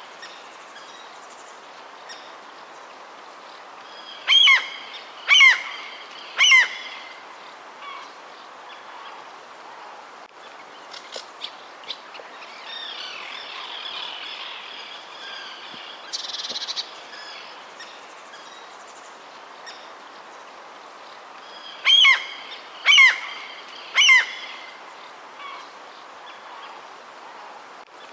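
Wild birds calling. A loud call comes three times about a second apart, and the set of three comes again later. Softer chirps sound in between over a steady background hiss.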